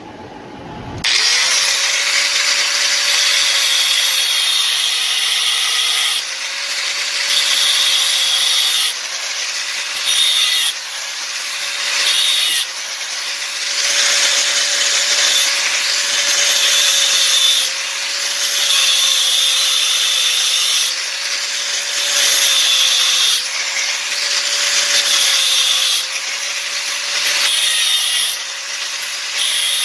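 Hand angle grinder cutting a steel pipe with a cut-off disc. It is switched on about a second in, then runs with a steady motor whine under loud metal grinding that comes and goes in repeated passes every few seconds as the disc bites into the pipe and eases off.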